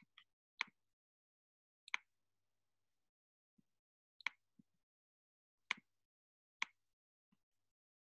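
Faint, sharp computer clicks, about seven clear ones and a few softer ones at uneven intervals, with near silence between: a mouse being clicked while moving between browser tabs and opening a document.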